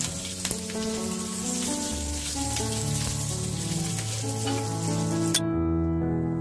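Green chillies, ajwain and turmeric sizzling in hot mustard oil in a small nonstick pan, under background music. The sizzle cuts off abruptly about five seconds in, leaving only the music.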